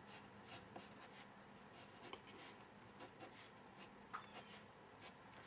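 Pencil sketching on drawing paper: faint, short, irregular scratching strokes.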